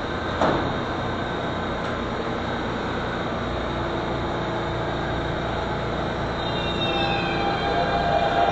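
R160 subway train with Siemens propulsion idling at the platform and then starting to pull out: a steady hum, with a knock about half a second in. Near the end the whine of its traction motors comes in and the sound grows louder as the train gets moving.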